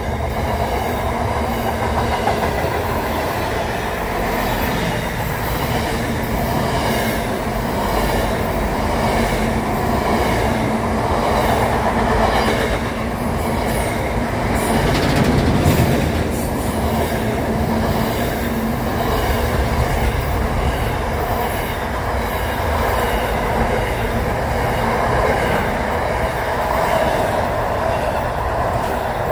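Container freight train's wagons rolling past at speed, a steady loud rumble of steel wheels on the rails.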